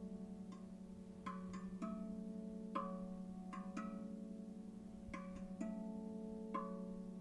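RavVast steel tongue drum in B Kurd tuning played with the fingers: slow, unevenly spaced strikes whose notes ring on and overlap one another.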